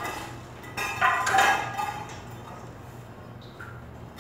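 Ceramic tiles clinking as they are handled, with one louder ringing clink about a second in and fainter knocks after it.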